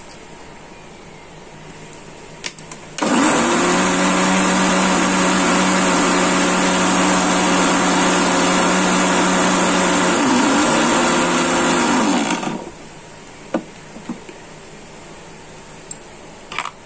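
Electric mixer grinder running for about nine seconds, its steel jar blending boiled raw-mango pulp with ginger and black pepper: a steady motor hum that starts about three seconds in and stops suddenly. A few light clicks from the jar and lid come before and after the run.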